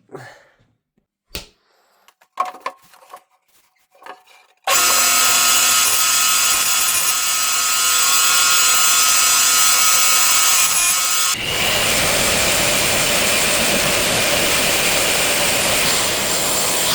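A few light knocks, then about five seconds in a loud power tool starts up on wood, running steadily with a whining hum. About eleven seconds in it gives way abruptly to a harsher, rougher power-tool sound that keeps going.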